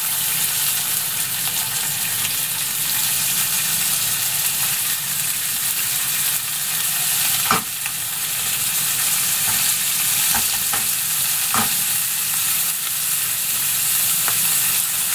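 Pacific saury (sanma) frying in sesame oil in a frying pan: a steady sizzle with a few sharp pops, the loudest about seven and a half seconds in.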